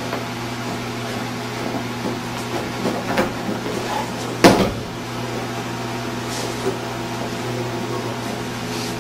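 A body thrown in an aikido technique hitting the padded mat with a loud thump about four and a half seconds in, with a few lighter knocks just before, over a steady hum.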